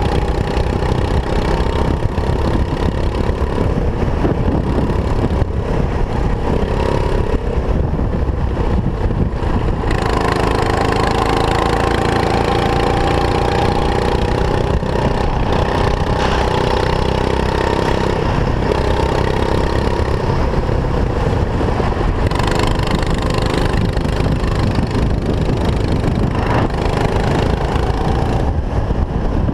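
Racing kart engine heard from on board at speed, its pitch rising and falling with the throttle through the turns, over a steady low rumble.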